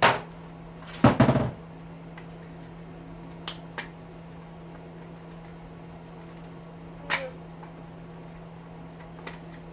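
Scattered knocks and taps of metal tools against a hedge trimmer's plastic motor housing while a small punch is worked at stuck rivets: a louder cluster about a second in, then single knocks, over a steady low hum.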